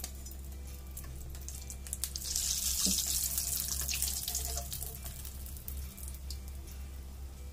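Samosas deep-frying in hot oil, sizzling. The sizzle swells sharply about two seconds in and dies back after a few seconds, over a steady low hum.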